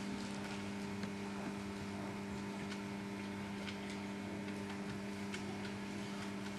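A steady low electrical hum, like mains hum from a sound system, with faint scattered ticks and clicks.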